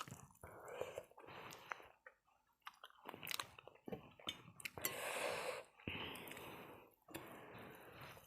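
A person chewing and biting food close to the microphone, with irregular crunchy clicks and mouth noises.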